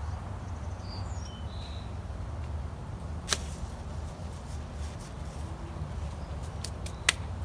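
Outdoor garden ambience: a steady low rumble, a few faint bird chirps about a second in, and two sharp clicks, one midway and one near the end.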